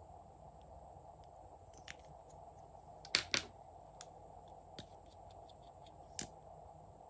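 Sharp plastic clicks of makeup pen caps and applicator wands being pulled out and handled, a few scattered clicks with the loudest a quick double click about three seconds in and another near the end, over a faint steady hiss.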